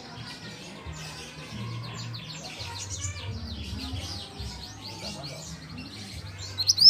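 A juvenile mantenan songbird in its speckled plumage singing: a fast, continuous stream of short, high, down-slurred chirps, with a louder burst of sharp notes right at the end.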